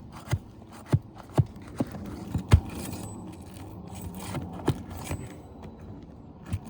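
Asphalt shingles being pried loose and their roofing nails pulled with a metal tool: a run of sharp clicks and taps, the loudest about two and a half seconds in, over light scraping of the tool against the shingles.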